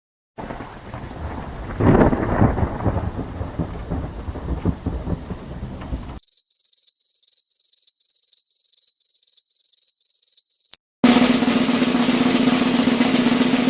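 A sequence of sound effects. First a thunderclap with a loud crack, then rumbling; then a high-pitched electronic beep pulsing about three times a second; then, after a click, a loud steady noise with a low hum.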